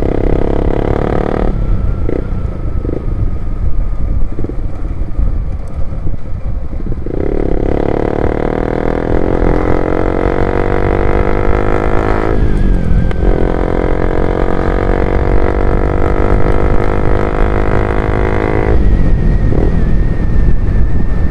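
Loud motorcycle engine running while riding, pulling hard in long stretches and easing off between them, with the engine note shifting in pitch.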